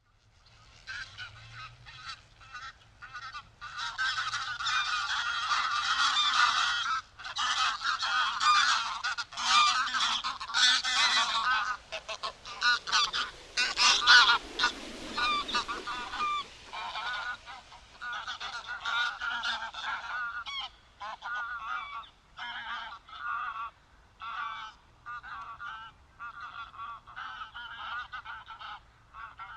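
Greylag geese honking: a dense run of overlapping calls through the middle, then single honks repeated about once a second near the end.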